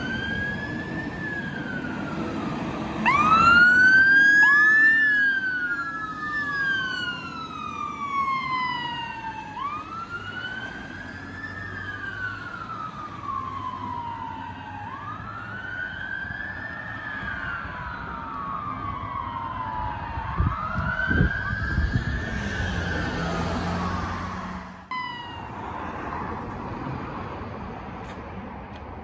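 Fire engine sirens wailing, each slow rise and fall taking about three seconds, with two sirens overlapping a few seconds in. The sirens stop abruptly about 25 seconds in, leaving quieter, steady vehicle noise.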